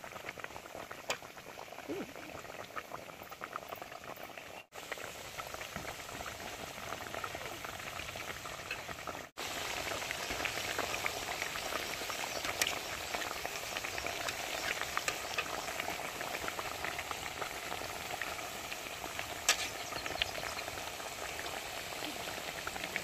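Banana and cassava-flour pancakes deep-frying in hot oil in a metal pot: a steady crackling sizzle and bubbling, a little louder after about nine seconds.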